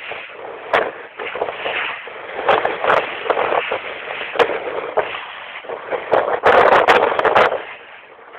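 Strong wind gusting across the microphone aboard a small boat at sea, an uneven rush of noise with scattered knocks and a louder gust near the end.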